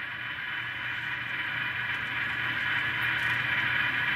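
An N-scale GE Tier 4 GEVO (ET44AC) model's ESU LokSound decoder plays diesel engine sound through the model's tiny speaker as the locomotive crawls in reverse at speed step two. It is a steady low hum with several steady high tones and grows slightly louder.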